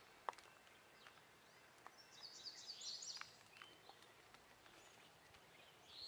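Near silence with faint bird chirps, a quick run of them about two seconds in, and a single sharp click just after the start.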